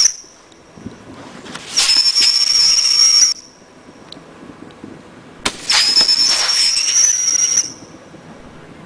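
Whistling fireworks going off one after another: each starts with a sharp pop, then gives a high, steady shrill whistle with hiss for about a second and a half to two seconds before cutting off sharply. Two full whistles sound, about a second and a half in and about five and a half seconds in, and another starts right at the end.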